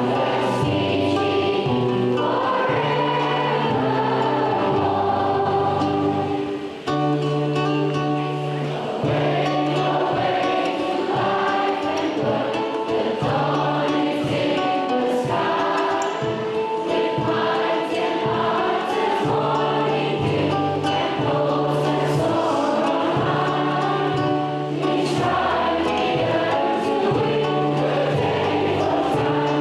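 A choir singing to musical accompaniment, with held notes over a moving bass line and a brief dip in level about seven seconds in.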